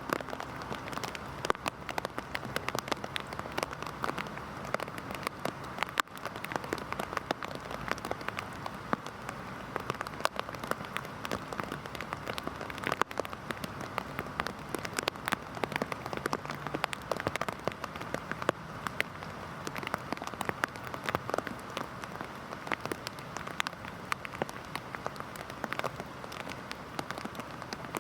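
Heavy rain falling steadily, with a dense patter of individual drops striking a surface.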